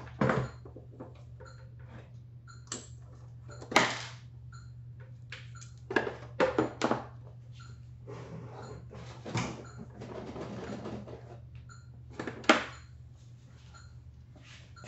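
Scattered clicks and knocks of objects being handled off to the side, a few of them sharp, with a short rustle in the middle, over a steady low hum.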